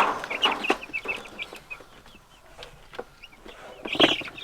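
Young meat chickens peeping: short high calls, many in the first second, fewer in the middle, then a cluster near the end. A few knocks and rustles from the birds being handled are mixed in.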